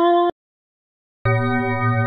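Software synthesizer pad presets being auditioned in FL Studio, one held note each. A held note cuts off about a third of a second in, and after about a second of silence a new preset's note starts.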